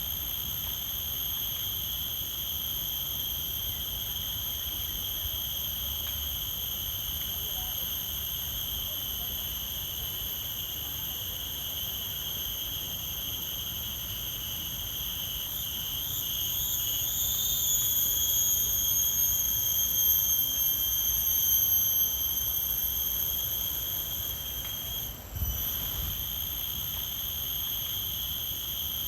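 Forest insects droning: one continuous high-pitched buzzing tone with overtones over a faint low hum. It wavers and swells louder about 16 seconds in, sinks slightly in pitch, then breaks off for a moment with a low thump near 25 seconds before resuming steadily.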